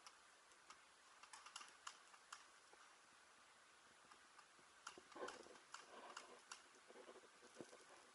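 Faint, irregular clicks and taps over near silence, with a small cluster of them about five seconds in.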